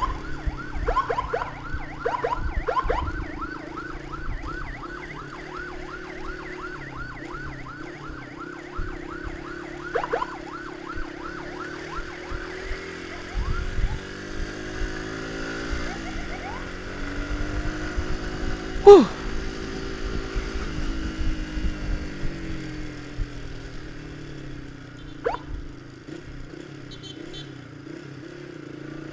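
Emergency siren yelping in quick repeating sweeps over wind rumble and a running motorcycle engine. The yelp fades after about twelve seconds, leaving the engine's pitch rising and falling, with one short, sharp, loud knock about two-thirds of the way through.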